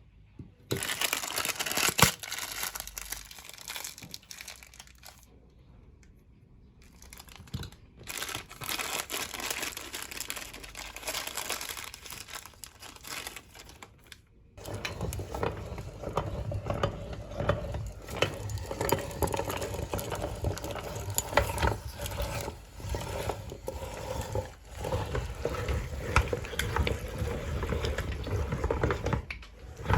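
Ice cream wrappers crinkling and tearing in bursts. About halfway through, a steadier sound with a low hum takes over, fitting a meat grinder running as it churns through the ice cream.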